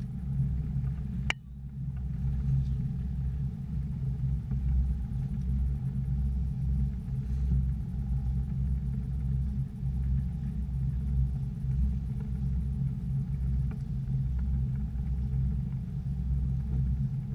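Fishing boat's engine running steadily, a low rumble, with a brief sharp click just over a second in.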